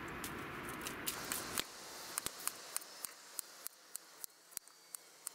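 Kitchen knife slicing an onion on a wooden cutting board: sharp, regular taps of the blade hitting the board, about three a second. For the first second and a half they sound over a steady rushing noise, which then stops abruptly.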